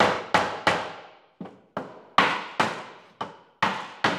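Claw hammer striking a block of chipboard resting on a polystyrene beehive box, tapping the glued tongue-and-groove joints home. There are about eleven sharp blows at an uneven pace, with a short pause about a second in.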